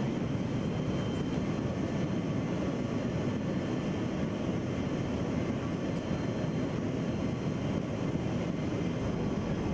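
Steady drone of a C-17 Globemaster III transport plane in flight, its engines and airflow heard from inside the cargo hold.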